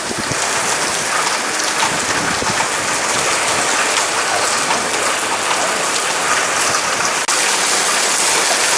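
Heavy rain pouring down and splashing on hard surfaces: a steady, dense hiss. About seven seconds in it cuts out for an instant and returns slightly louder.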